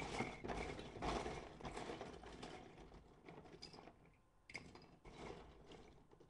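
Plastic Lego bricks clicking and rattling as they are handled. There is a dense run of small clicks and scrapes for the first few seconds, then two shorter bursts near the end.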